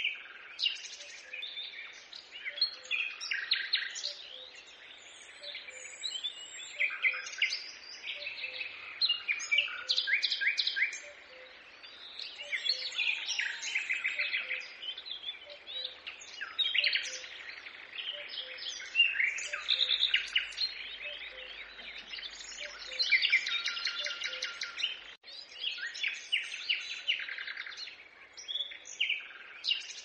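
Several birds singing and chirping at once, a dense chorus of quick trills and rapidly repeated notes that overlap without a break.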